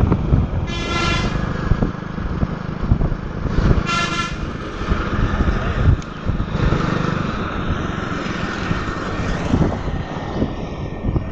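Low engine and wind rumble of a motorcycle being ridden, with a vehicle horn honking twice, short beeps about a second in and about four seconds in.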